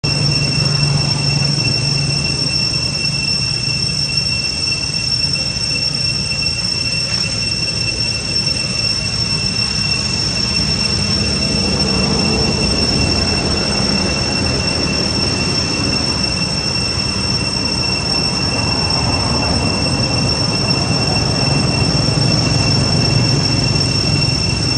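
A steady, high-pitched insect drone, like a chorus of cicadas, holds one even pitch over a low, steady rumble.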